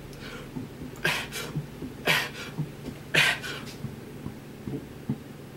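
A man forcing throat and mouth sounds to bring up a burp, gulping air: three sharp breathy bursts about a second apart, then a few faint clicks.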